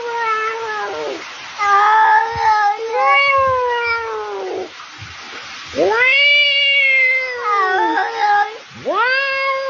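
A cat meowing in a run of long, drawn-out yowls, four or five in a row, each rising and then sliding down in pitch.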